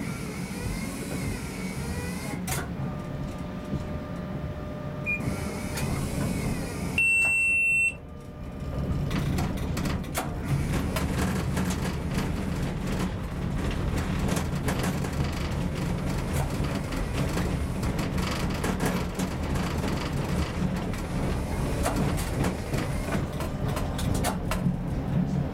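Tram running slowly, heard from the driver's cab: a steady low rumble, with a faint steady whine between about two and six seconds in. About seven seconds in comes a single loud electronic beep lasting about a second, after which the rumble grows louder and the wheels click and clatter over rail joints and crossings as the tram gathers speed.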